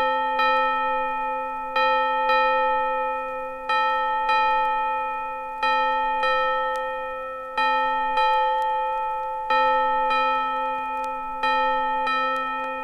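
A metal bell struck twice in quick succession, the pair repeated about every two seconds, each strike ringing on and dying away slowly at the same pitch.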